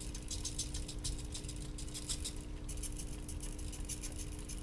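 Hobby RC servos driven by a Teensy 3.1 from RC receiver signals, chattering in quick, irregular ticks over a steady low hum as they follow the transmitter sticks in a choppy, jerky way.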